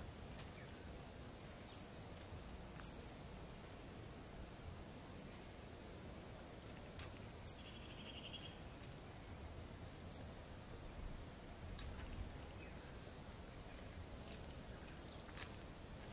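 Faint outdoor background hiss with a few short, high bird chirps scattered through it and a couple of brief buzzy trills.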